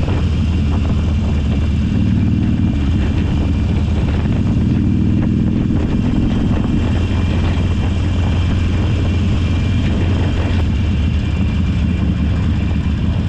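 Motorcycle engine running steadily under load in second gear on a climb, with road and wind noise.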